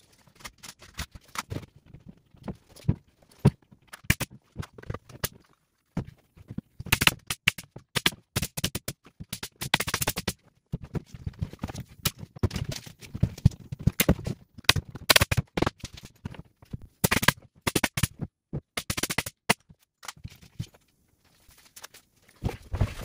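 Pneumatic nail gun firing nail after nail through OSB sheathing into a wooden stud wall frame, in quick runs of sharp shots with short pauses between them.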